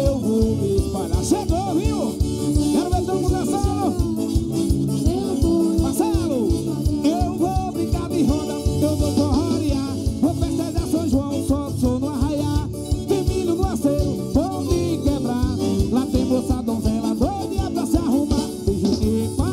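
Live forró band playing: accordions carry a bending melody over the zabumba drum, bass and electric guitar, with a steady, driving beat.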